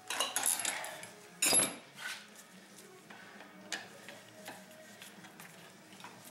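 Metal hand tools clinking and clanking on a motorcycle fork leg as a wrench is worked on its fittings. There is a sharp metal clank about a second and a half in, then a few lighter clicks.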